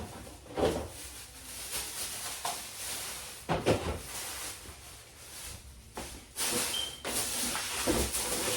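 Groceries being handled and put away: packaging rustles and items set down with several knocks, and one short high beep a little past the middle.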